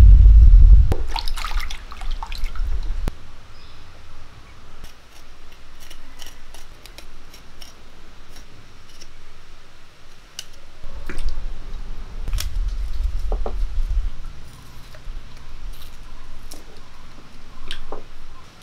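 Water dripping and splashing as sardines are cleaned and scored with a knife over a pot of water, with scattered small clicks and drips. A low rumble comes at the start and again around the middle. Near the end something drops into a clay bowl of water with a small splash.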